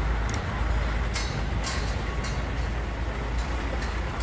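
Construction-site noise: a steady low rumble with a short sharp clank every second or so, about six in all, as workers take apart metal scaffolding and rink structures.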